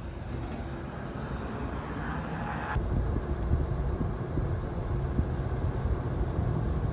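Steady low vehicle rumble with road noise, as of moving through city traffic; the sound changes abruptly about three seconds in.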